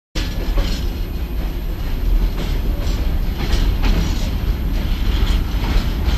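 Freight train of hopper wagons rolling slowly through a rail yard: a steady low rumble with irregular clacks of the wheels over rail joints and points.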